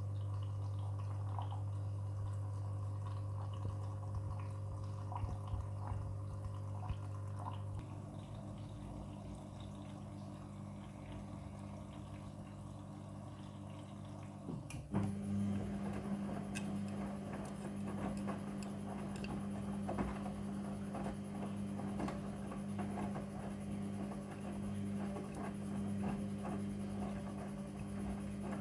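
Front-loading washing machine at work: water splashing and trickling in the drum over a steady mechanical hum. About fifteen seconds in, a click is followed by a louder, higher hum with a faint high whine.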